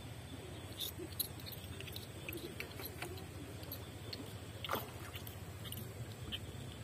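Faint scattered clicks and small crackles of hands handling a just-caught nilem (hard-lipped barb) and working the hook free, with one sharper click a little past halfway.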